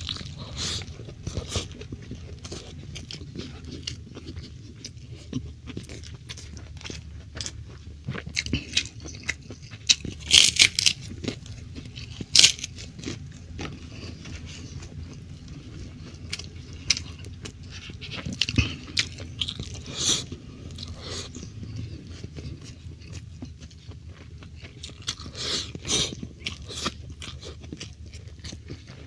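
Close-miked eating: a person chewing and biting mouthfuls of rice with stir-fried beef in soy sauce, with irregular wet smacks and crunchy clicks. The loudest bites come about ten to twelve seconds in.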